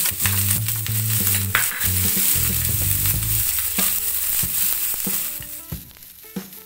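Sliced onions sizzling in hot ghee in a non-stick frying pan, stirred with a wooden spatula that scrapes and taps against the pan. The sizzle dies down about five and a half seconds in.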